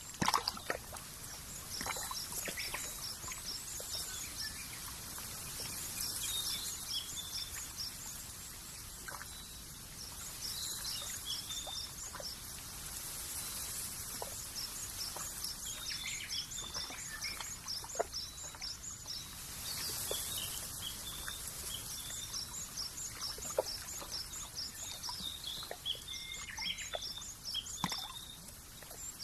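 Small birds chirping in quick trains of short high notes over a steady outdoor hiss, with scattered faint ticks.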